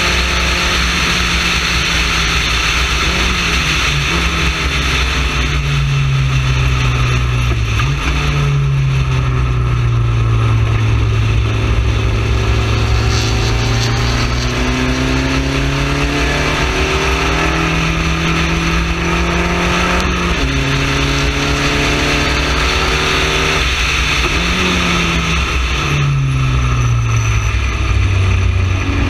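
Onboard sound of a Spec Racer Ford's four-cylinder engine at racing speed, its pitch falling and climbing as the car lifts and accelerates through corners, with several quick gear-change steps. Heavy wind and road noise run under it throughout.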